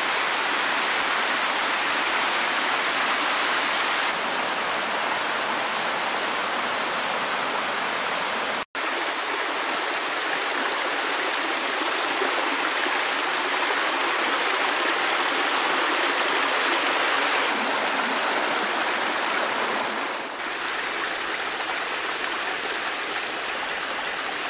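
Steady rushing hiss of running water from a mountain stream. The sound changes abruptly a few times, with a momentary dropout about nine seconds in.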